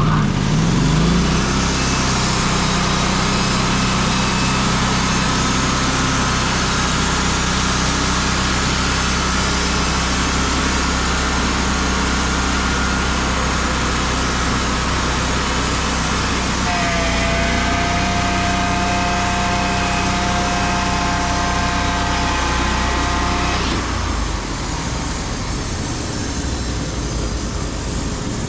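Gas engine of a Wood-Mizer LT35 band sawmill revving up and running steadily. A high whine joins in for several seconds in the second half, and the engine throttles down near the end.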